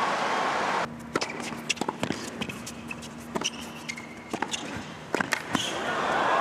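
Crowd noise cuts off about a second in. Then comes an indoor tennis rally: sharp racket strikes and ball bounces, about a dozen over four seconds, and the crowd rises again near the end.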